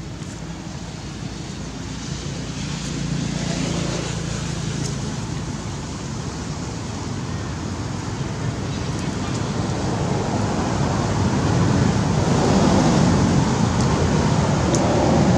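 Steady rumbling outdoor background noise that swells louder over the last few seconds, with a few faint clicks.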